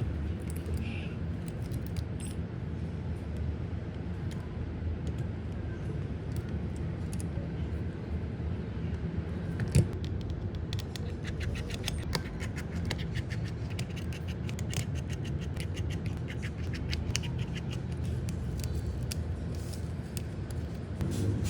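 Small metallic clicks, ticks and scrapes of hand tools working on a phone, over a steady low hum. The clicks come thick and fast in the second half, with one sharp knock a little before the middle.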